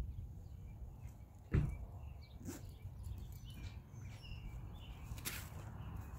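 Small birds chirping, with a few dull thumps and knocks as the rolled-up tent bundle is pressed down and strapped on the tarp. The loudest thump comes about a second and a half in, over a low steady rumble.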